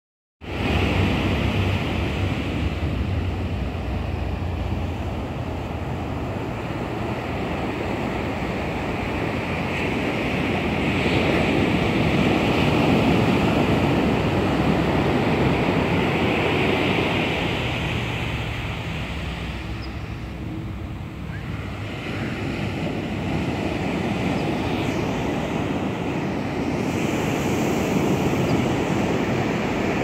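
Pacific Ocean surf breaking and washing up a sandy beach: a continuous rush of waves that swells louder for a few seconds in the middle and then eases.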